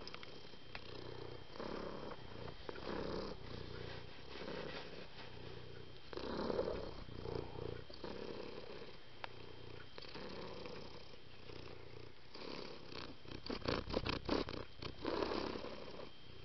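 Domestic cat purring, swelling and fading in cycles about two seconds apart. A quick run of clicks or rustles comes near the end.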